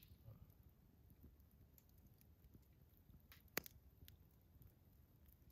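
Near silence with faint crackling from a wood campfire and one sharp pop about three and a half seconds in.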